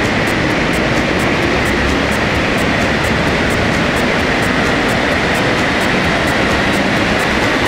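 Honda Civic 2.2 i-CTDi four-cylinder turbodiesel running on a chassis dyno, a loud steady rush of engine, tyres and rollers, with a fast, even ticking high above it.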